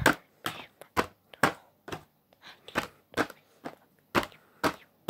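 Stiff clear plastic blister packaging of a boxed wooden toy engine crackling and clicking as it is handled, a string of sharp cracks at an uneven two or three a second.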